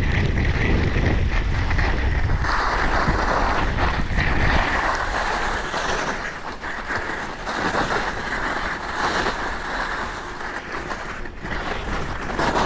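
Wind rumbling on a GoPro's microphone while skiing downhill, heaviest for the first few seconds and easing about halfway in. Under it, skis hiss and scrape over groomed snow, swelling and fading with each turn.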